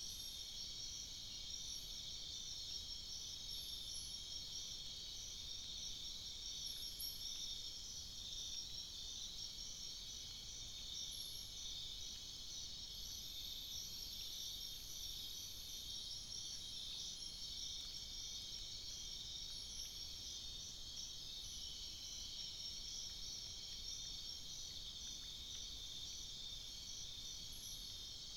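Nocturnal rainforest insect chorus: a dense, steady, high-pitched buzzing and trilling, with one voice pulsing rapidly. A few faint, short, higher notes are scattered through it.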